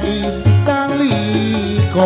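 Live band playing an instrumental passage of a Javanese pop song, with a moving bass line under melodic instruments and a steady beat.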